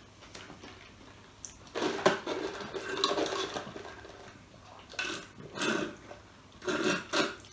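Soft drink sipped through a straw from a paper cup in several short slurps, with quiet between them.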